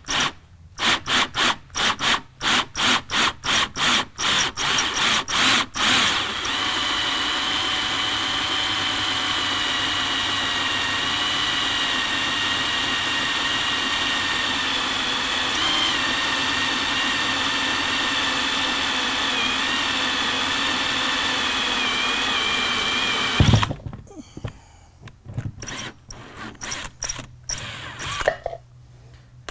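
Power drill turning a 1.5-inch hole saw through the plastic top of a fuel tank. For about the first six seconds the trigger is pulsed in short bursts, about two or three a second, to start the cut. Then comes a steady cut with a high whine for about seventeen seconds, ending in a sharp loud knock as the drill stops, followed by a few short, quieter sounds.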